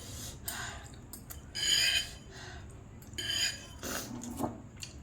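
Mouth sounds of someone eating extra-spicy instant noodles: two short, hissy slurps or breaths about one and a half and three seconds in, and a couple of light clicks near the end.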